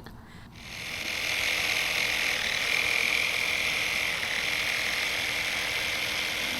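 An electric power tool running steadily with a high-pitched hissing whir, building up about half a second in and then holding even.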